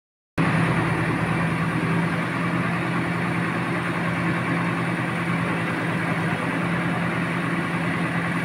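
Diesel engine of a pick-and-carry crane running steadily with a constant low hum while it holds a fiberglass pool shell on lifting straps.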